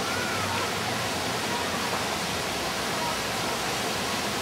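Steady rushing hiss of outdoor noise, with faint distant voices near the start.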